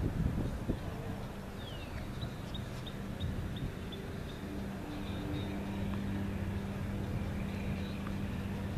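Outdoor ambience: a steady low hum like a distant motor, with a low rumble of wind. About two seconds in, a bird gives a falling whistle followed by a quick run of short high chirps.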